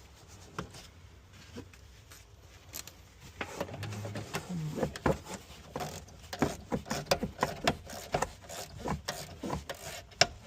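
Wrench clicking and scraping as the negative terminal clamp is tightened onto a car battery post. There are rapid irregular metal clicks from about three seconds in.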